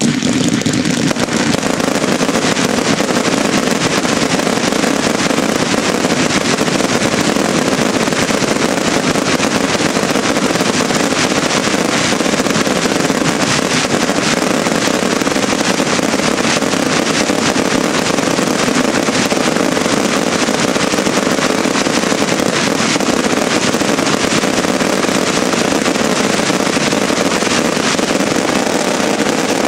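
Fireworks finale: ground fountains and a dense, unbroken barrage of aerial bursts and crackle, starting suddenly and staying loud throughout.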